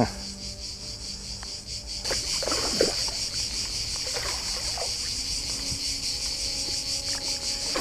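Steady, rapidly pulsing chirring of an insect chorus, growing louder about two seconds in. Over it come a few soft splashes of a hooked carp thrashing and turning at the surface.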